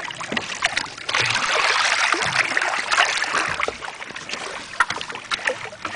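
Water splashing and sloshing around a shark roped alongside a boat's hull as it moves at the surface. The splashing is heaviest from about a second in until about three and a half seconds, then eases.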